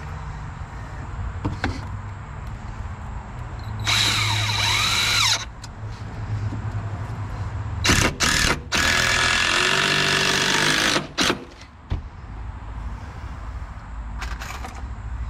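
Power drill driving screws into wood framing in three runs, the longest about two seconds, with the motor whine changing pitch as each screw seats. A low steady hum runs underneath.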